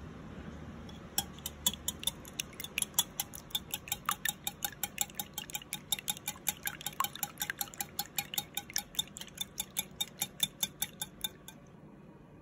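Metal wire whisk beating raw eggs in a glass bowl: the wires click against the glass in a quick, even rhythm of about four strokes a second. The clicking starts about a second in and stops shortly before the end.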